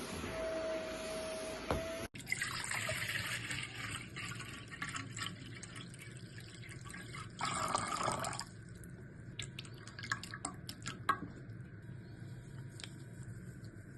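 Water running from a tap in short spells, loudest for about a second past the middle, then scattered drips and small clicks of things being handled in the wet. Background music cuts off about two seconds in.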